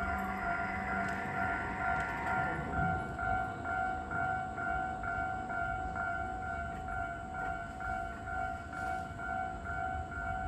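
Japanese level crossing warning bell ringing a steady two-tone "kan-kan" at about two strokes a second, signalling that a train is near. The noise of a passing electric train runs under the bell and dies away about two and a half seconds in.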